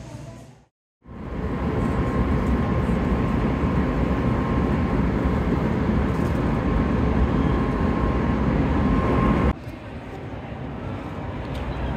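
Train running: a steady, loud rumble with a faint steady whine over it, after a moment's silence. It cuts off suddenly near the end to quieter background sound.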